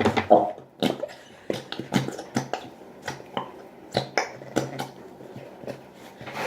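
Irregular sharp clicks and taps, two or three a second, from a plastic glue bottle being squeezed and handled to get all the glue out.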